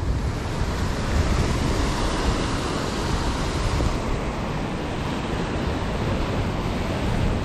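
Surf washing and breaking against rocks, a steady rushing wash, with wind buffeting the microphone as a low rumble.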